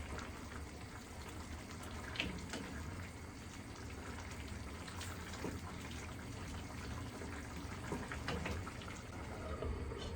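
Beef curry bubbling steadily as it simmers in the pan, with a few light clicks.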